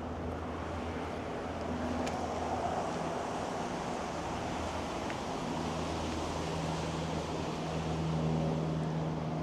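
Steady street traffic noise: a continuous rush of passing cars with a low engine hum under it.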